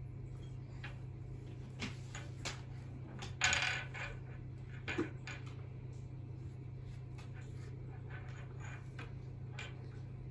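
Small plastic toys clicking and tapping against a tabletop as a child handles them, with a brief louder rattle about three and a half seconds in and another about five seconds in. A steady low hum runs underneath.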